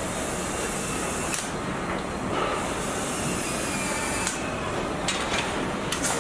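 Car assembly line machinery noise: a steady rumble with a few brief sharp hisses.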